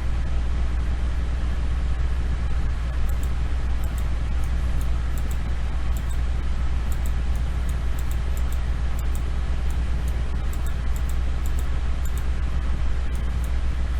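Computer mouse clicking repeatedly and irregularly, several clicks a second, over a steady low background rumble.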